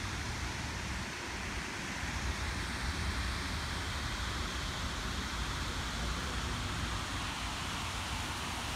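Steady outdoor rushing noise, with wind buffeting the microphone in an uneven low rumble.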